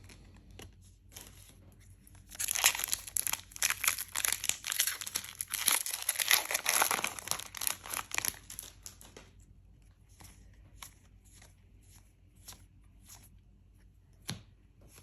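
A foil Lorcana booster pack wrapper being torn open and crinkled: a dense crackling stretch from about two to nine seconds in, followed by faint scattered ticks of cards being handled.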